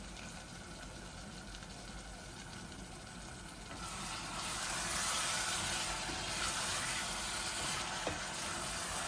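Dried silver pomfret (rupchanda shutki) frying in oil in a steel saucepan, sizzling. The sizzle grows louder about four seconds in as the pieces are stirred with a wooden spoon.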